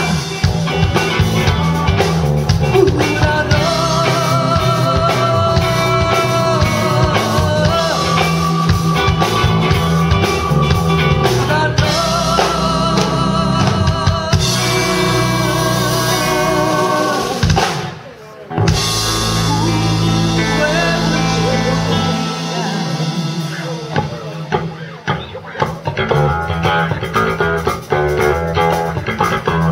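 Live rock band playing through a PA: drum kit, electric guitars and keyboard, with a brief break of about a second just past the middle before the band comes back in.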